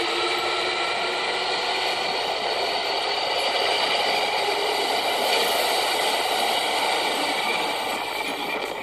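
Kintetsu electric train leaving an underground platform: a steady running noise of wheels and motors with held tones, easing off near the end as it moves away.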